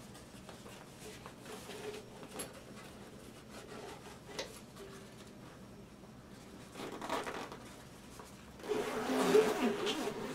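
Soft fabric instrument case being handled: a few light knocks and rubbing, then a louder stretch of rustling near the end.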